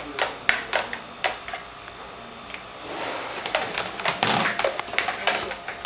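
Utensils clicking and knocking against a container: a few sharp separate taps, then, about halfway through, a busier stretch of rapid knocks and scraping.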